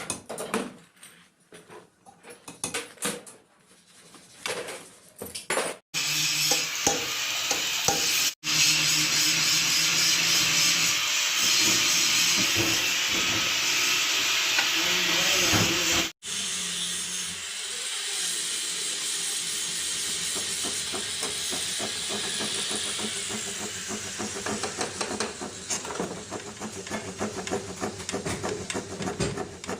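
Workshop sounds from sewing-machine manufacture across several edits. First a few scattered knocks and clicks, then a loud, steady hiss, then a machine running with fast, even ticking.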